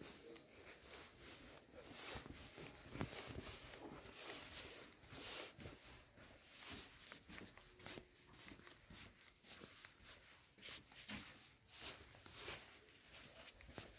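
Near silence, broken by faint footsteps on a dirt path and scattered soft clicks.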